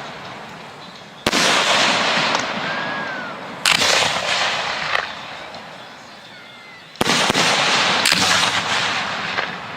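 Professional display fireworks going off: three loud bangs about one, three and a half and seven seconds in, each with a long fading tail, and smaller pops in between.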